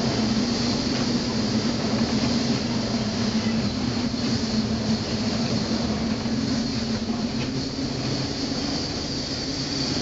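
Steady drone of a ship's engine heard inside the wheelhouse while the vessel pitches through heavy storm seas, a constant low hum with a steady hiss over it.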